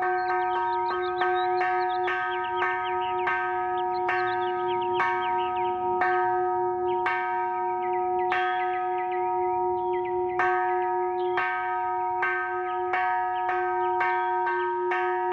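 Bells or chimes struck over and over, about two strikes a second and sparser around the middle, each adding to a steady ringing of several fixed pitches.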